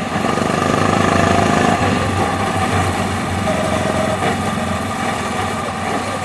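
Go-kart engine running at speed on track, heard close-up from a camera mounted on the kart. Slightly louder about a second in, then easing off a little.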